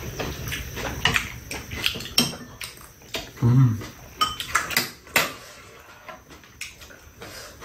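Metal spoons and chopsticks clinking and scraping against ceramic bowls and a pan during a meal: a scatter of sharp, irregular clicks, with a brief low sound about three and a half seconds in.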